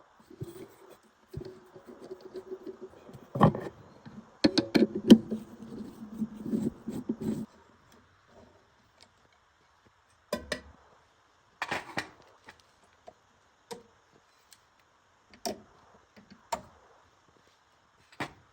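Hand work on metal parts: scraping and rubbing with knocks, a sharp knock about three and a half seconds in, then single clicks and taps a second or two apart.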